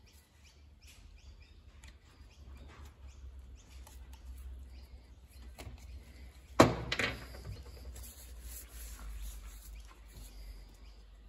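Light clicks and rustles of small parts being handled on a workbench as O-rings are worked off a plastic oil filter housing. About two-thirds of the way through comes one sharp knock as a part is set down on the bench. A steady low hum sits underneath.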